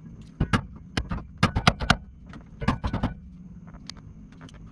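Hammer striking a hand impact driver set in a rusted door hinge screw of a 1974 VW Super Beetle: a series of sharp metallic hits in irregular clusters. Each blow drives the bit in and twists it to break the screw loose.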